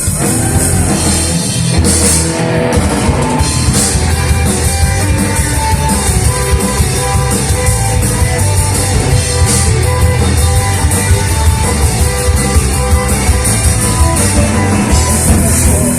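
Rock band playing an instrumental passage: a drum kit beating steadily under guitar, with no vocals.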